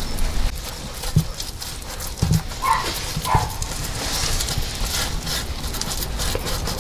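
Wind buffeting the microphone in a steady low rumble, with scattered light clicks. About three seconds in, an animal gives two short calls, a little under a second apart.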